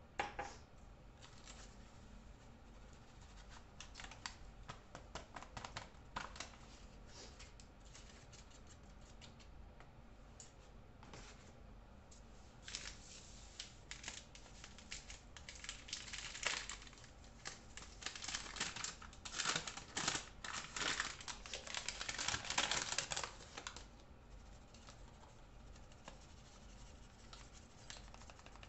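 Rustling and crinkling of a paper flour bag, with many quick light clicks and taps, as flour is scooped and poured. It is busiest around the middle of the stretch and eases off near the end.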